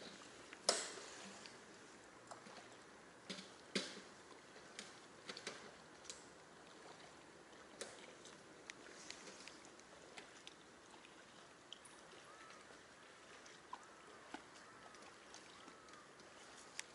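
Scattered sharp clicks and ticks from a spinning rod and reel being handled while a lure is shaken and paused, the loudest about a second in, over a faint steady outdoor background.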